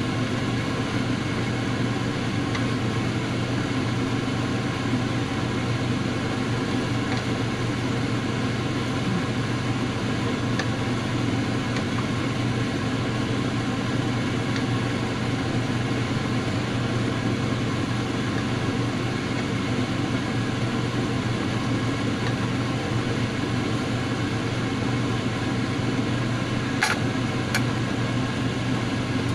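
A steady mechanical hum with a constant low drone that doesn't change, and two short sharp clicks near the end.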